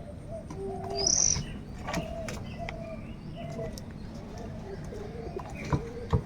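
Birds calling: a loud, high-pitched call about a second in over many shorter, lower-pitched calls, with two sharp clicks near the end.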